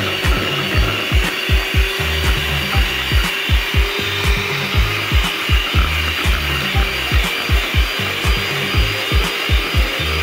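Electric hand mixer running, its wire beaters whipping a thick matcha dalgona cream in a stainless steel bowl, with a steady grinding hiss. Background music with a steady beat plays under it.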